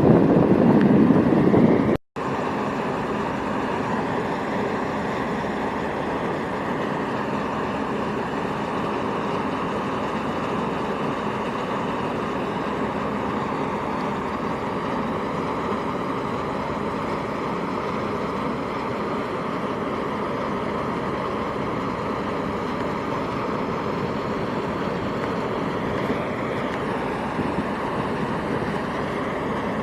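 Combine harvester running steadily. A louder stretch in the first two seconds breaks off abruptly about two seconds in, then an even, unchanging running noise continues.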